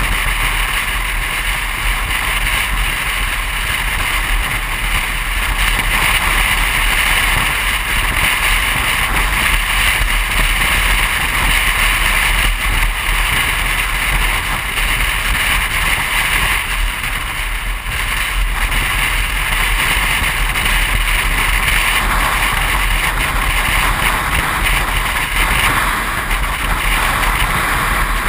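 Steady wind and road noise from a car driving at highway speed, with wind rumbling on the microphone.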